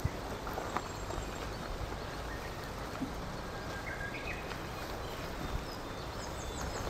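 Steady outdoor background hiss with a few faint clicks, and a short, faint bird chirp about four seconds in.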